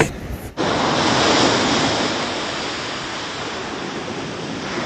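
Steady rushing noise of sea surf with some wind, starting about half a second in.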